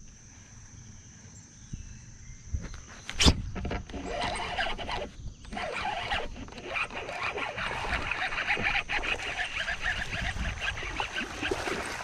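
A baitcasting reel: a sharp click about three seconds in, then fast cranking with a dense run of small ticks as a hooked largemouth bass is reeled toward the bank.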